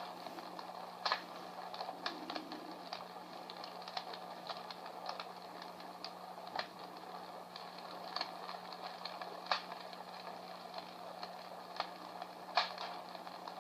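Crackling wood-fire sound effect from a small battery-operated sound machine's speaker: irregular pops and snaps, a few louder ones, over a soft hiss, with a steady low hum beneath.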